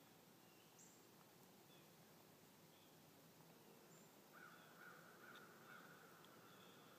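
Near silence in the woods with faint bird calls: a few short high chirps, then from about four seconds in a harsher, rasping call that repeats to the end.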